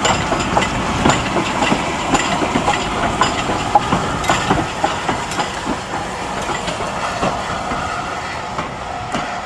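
Stanier 8F two-cylinder 2-8-0 steam locomotive passing slowly at close range, its side rods clanking about twice a second over a steady hiss of steam. The clanks thin out near the end as it draws away.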